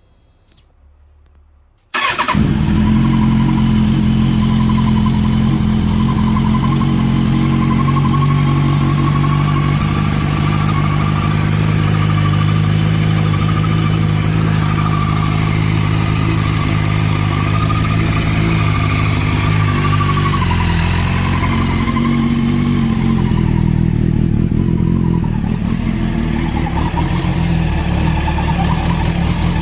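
2005 Kawasaki ZX-6R's inline-four engine firing up about two seconds in, then idling steadily, the start-up that the owner says brings a strange noise. Its note shifts and wavers around twenty seconds in before settling.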